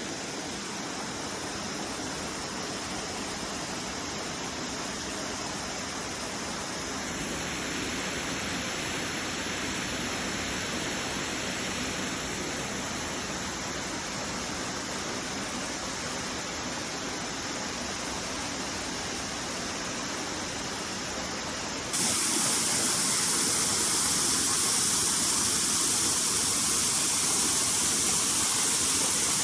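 Waterfall rushing: a steady wash of falling water that jumps suddenly louder and hissier about three quarters of the way through.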